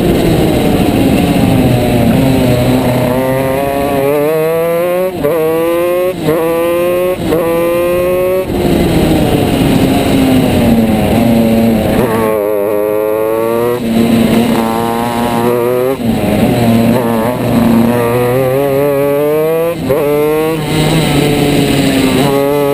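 Shifter kart's two-stroke engine at racing speed, revving up through the gears: its pitch climbs and drops back at each upshift about once a second, then falls away under braking for a corner and climbs again, several times over.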